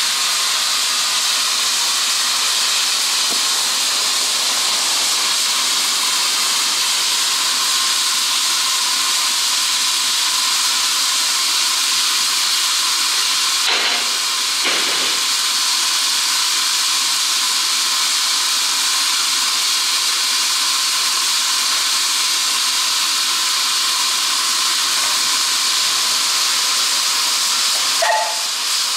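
Steam hissing steadily from a standing South African NG/G16 Garratt steam locomotive. A single knock comes about halfway through, and a brief higher-pitched sound comes near the end.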